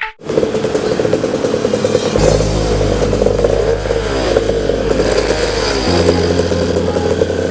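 Ported 63cc two-stroke goped scooter engine, fitted with a replacement carburettor, running loudly at a fairly steady high speed after starting up about a third of a second in.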